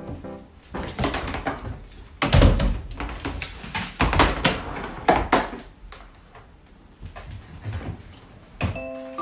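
Standard poodle puppy playing on a wooden floor: irregular thumps, knocks and scuffles, with one heavy thud about two and a half seconds in. Piano music comes back near the end.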